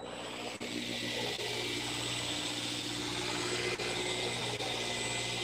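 Small fishing reel being cranked steadily, a continuous whir, as a hooked swordtip squid is reeled up from about 15 m. Under it runs the steady low hum of the boat's engine.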